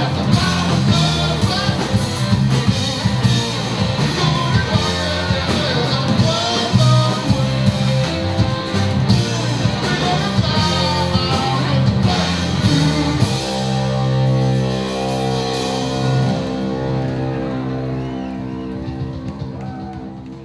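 Live rock band playing loud, with electric guitars (one a double-neck), bass and drum kit. About two-thirds of the way through, the drumming stops and a final held chord rings on, fading away near the end.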